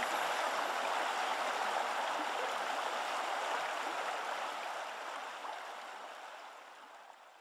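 Steady rushing noise, like running water, fading out over the last few seconds.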